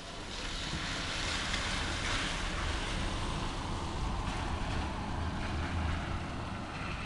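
Heavy rain pouring down, a dense steady hiss that swells louder about half a second in, with a low rumble underneath.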